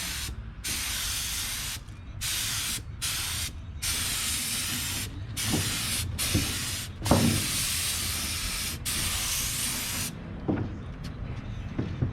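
Paint spray gun spraying in repeated bursts of hiss, each a second or two long, as the trigger is pulled and let go. There are a few faint knocks, and the spraying thins out over the last couple of seconds.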